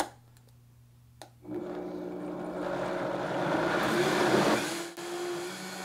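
Vitamix blender motor puréeing hot squash soup. It starts about a second and a half in after a click, grows louder, dips briefly near the end and runs on.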